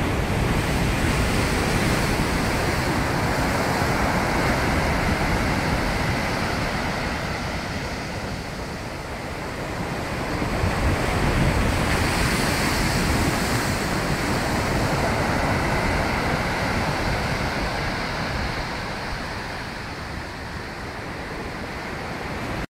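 Rough sea surf breaking and washing up the beach in a continuous roar that swells and eases every several seconds, with wind buffeting the microphone in a low rumble.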